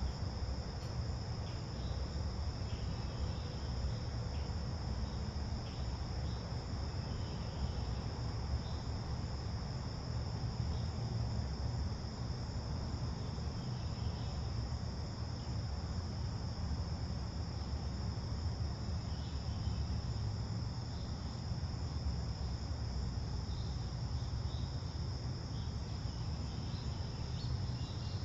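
Steady chorus of crickets, one unbroken high-pitched trill, over a low steady rumble.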